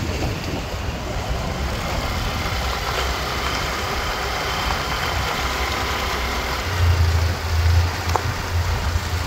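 Wind rushing over the microphone, a steady noise that turns into heavier low buffeting gusts from about seven seconds in.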